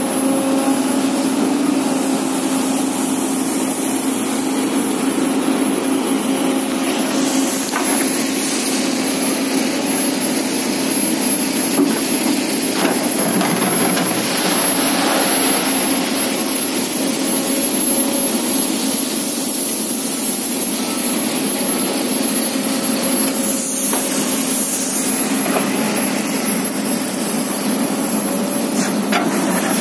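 Hydraulic excavator's diesel engine running steadily close by, a continuous drone with a constant hum, with a few short knocks along the way.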